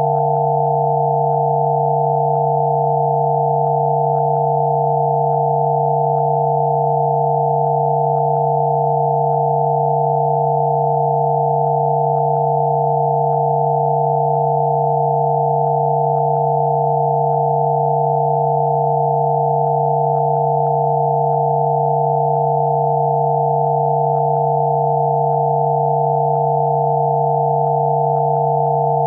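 Several pure electronic sine tones held steady together, one low and three higher, with no change in pitch or loudness: a generated Rife frequency-therapy tone.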